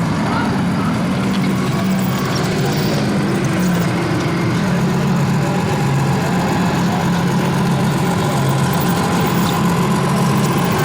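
Engine sound of a radio-controlled model truck running steadily at a low pitch, shifting slightly about halfway through.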